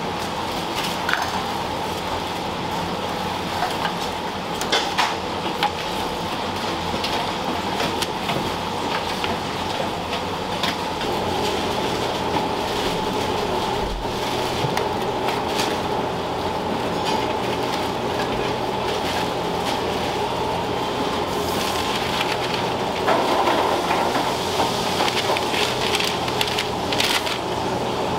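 Commercial kitchen ambience: a steady mechanical hum and hiss under scattered clicks and clatter of containers and utensils, busier near the end.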